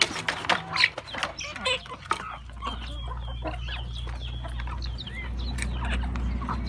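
Hens and roosters clucking as they feed, with quick sharp taps of beaks pecking in a plastic feed tray, most of them in the first couple of seconds. After about two and a half seconds a steady low rumble comes in under the clucking.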